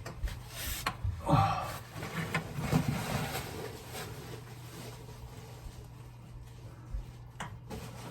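Front-loading washing machine running with a steady low hum, under irregular rustling and knocks in the first few seconds and a short click near the end.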